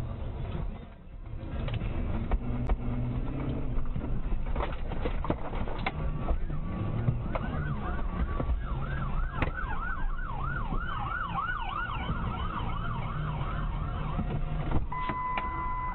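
Low vehicle and road rumble with scattered knocks, then from about eight seconds a police siren's fast rising-and-falling yelp, about three sweeps a second. Near the end the yelp breaks for a short steady tone, then starts again.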